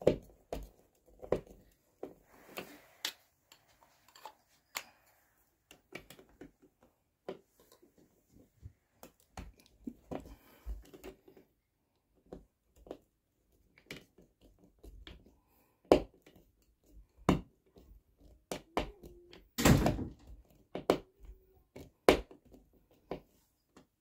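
A hand screwdriver driving the screws of a plastic Ethernet and coax wall plate into its mounting bracket: scattered, irregular clicks and light knocks of metal on plastic, with a few louder knocks in the second half.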